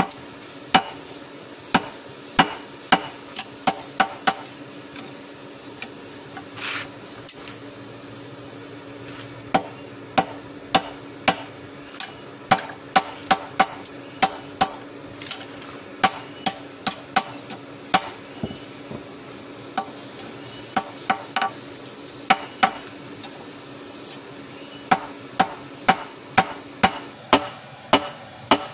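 Hand hammer striking a red-hot golok (machete) blade on a small steel anvil: sharp metallic blows in runs of about two or three a second, broken by pauses of a few seconds. The heated blade is being forged back into shape.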